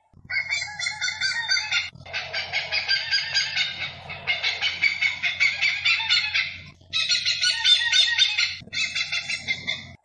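A hornbill calling in rapid runs of repeated harsh notes, in bouts of about two seconds with short breaks between, over a faint low hum.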